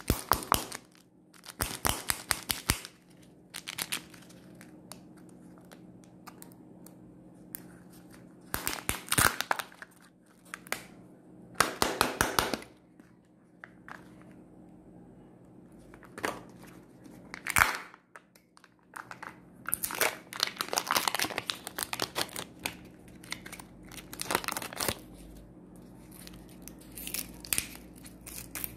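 Plastic Kinder Joy egg being opened in the hands: bouts of crinkling and tearing as the thin seal is peeled off the egg halves, each bout lasting about a second, with quiet pauses between them.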